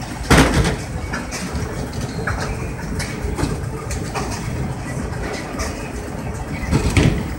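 Bowling alley lane noise: a steady low rumble of balls rolling down the lanes, with scattered sharp clatters and two louder crashes, one just after the start and one near the end.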